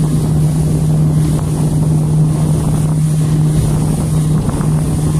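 Small motorboat under way, its engine running at a steady cruising drone with water rushing past the hull.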